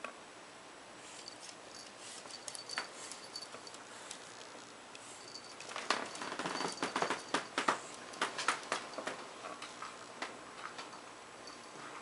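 Irregular quick clicks and taps from a pug puppy: claws on laminate flooring and kibble rattling in a metal food bowl as it eats. The clicking is busiest a little past the middle.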